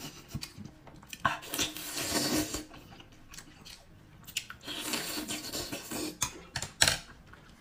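Close-up mouth sounds of a person biting sauce-soaked oysters off a skewer and chewing them, with irregular smacks and clicks.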